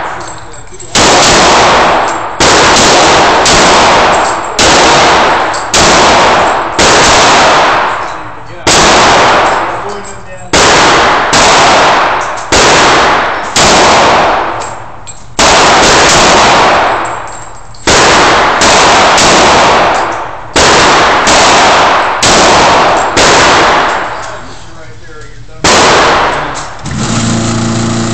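Glock 23 .40 S&W pistol fired shot after shot at an uneven pace, about one a second, each report trailing off in an echo. There are more than twenty shots, with short pauses between groups. Near the end a steady low hum comes in.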